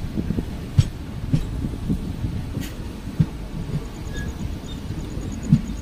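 Passenger train running, heard from inside the coach: a steady low rumble with irregular knocks from the wheels on the track.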